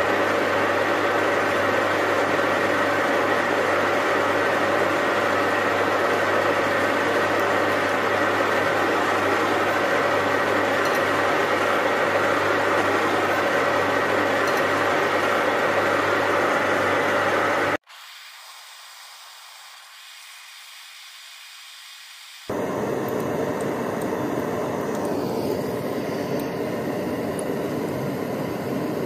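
Lathe running steadily, its motor and drive giving a hum with several steady tones under a hiss. It cuts off abruptly to a faint hiss for a few seconds. Then comes the steady hiss of a gas torch flame.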